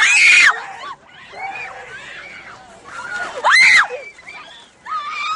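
A person screaming: a loud, high shriek at the start and another about three and a half seconds in, with quieter cries between.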